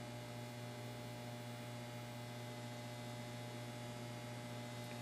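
Steady low electrical mains hum with a faint hiss behind it, unchanging throughout.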